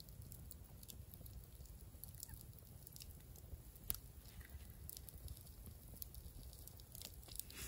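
Campfire crackling faintly: sparse sharp pops and snaps, one louder snap about four seconds in, over a low steady rumble.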